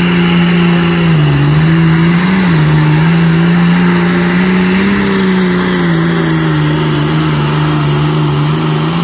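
Engine of a pulling vehicle running loud at high revs as it drags the sled down the track. Its pitch sags about a second in, recovers and wavers through the run.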